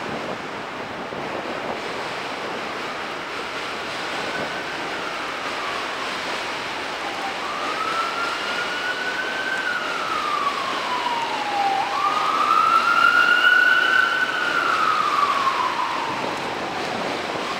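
Emergency vehicle siren wailing in slow rises and falls, growing louder about two-thirds of the way through, over a steady rush of wind noise.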